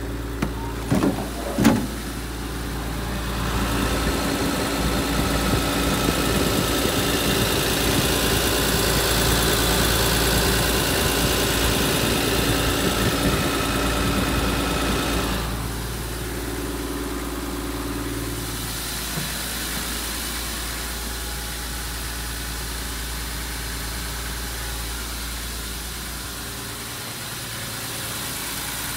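Nissan Civilian bus's TD42 straight-six diesel idling steadily. It is louder through the middle stretch, heard close beside and under the chassis. A few sharp knocks sound about one to two seconds in.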